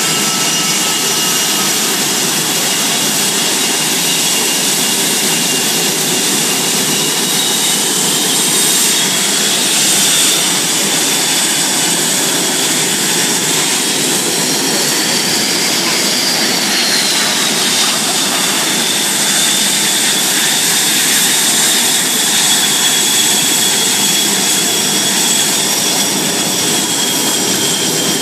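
Blue Angels F/A-18 Hornet jet engines running, a steady loud rush with high whining tones. About halfway through, one whine rises and then falls back.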